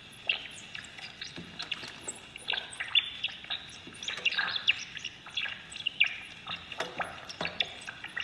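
A laboratory rat's 50-kilohertz ultrasonic calls, shifted down into hearing range, come as a rapid string of short chirps, several a second, some gliding in pitch, while it is being tickled. The flood of these calls is the sign of a rat in a positive, playful state that is enjoying the tickling.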